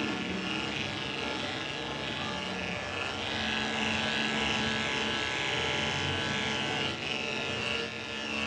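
Andis five-speed corded dog clipper running steadily as it is worked through a dog's coat.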